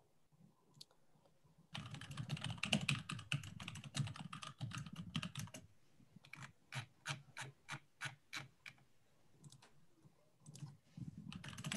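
Typing on a computer keyboard. A quick run of keystrokes starts about two seconds in, then slower single key presses come about three a second, and after a short pause a further run of typing begins near the end.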